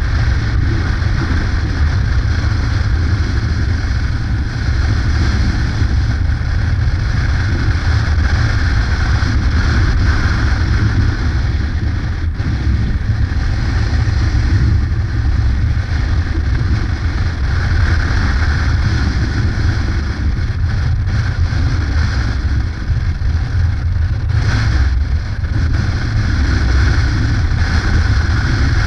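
Yamaha Ténéré adventure motorcycle cruising at a steady road speed: a low, even engine rumble mixed with wind noise on the microphone.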